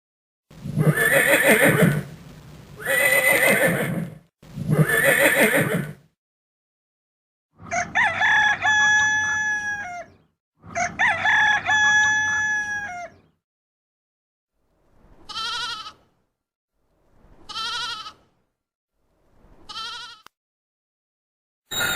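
Farm animal calls in turn: three harsh calls, then a rooster crowing twice with long, drawn-out crows, then three short, fainter calls.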